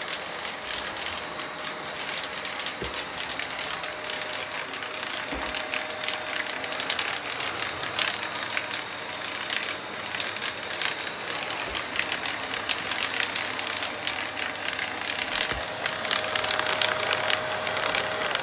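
Deik bagless cylinder vacuum cleaner running with a steady motor whine, crackling as grit and debris rattle up through the pipe from a dirty floor. Right at the end it is switched off and the whine starts to fall.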